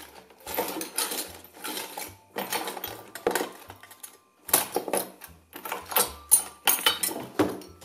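Small objects clinking and rattling as hands rummage through a cluttered wooden bedside-table drawer, in quick irregular spells with brief pauses about two and four seconds in.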